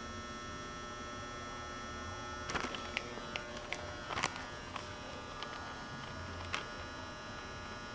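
Steady electrical hum and buzz, with a scatter of short sharp clicks and knocks through the middle.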